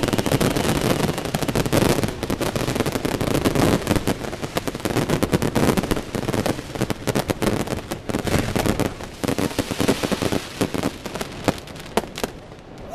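Fireworks crackling: a dense, rapid run of sharp cracks and pops that thins out over the last few seconds to a few separate cracks.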